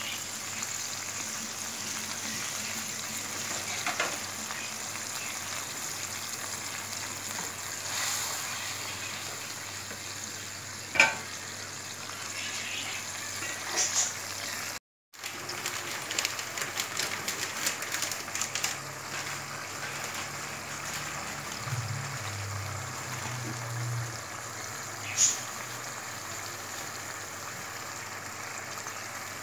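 Ground masala paste with spices frying in oil in a non-stick kadai: a steady bubbling sizzle as the masala cooks down. A few sharp clicks come through it, and the sound cuts out briefly about halfway through.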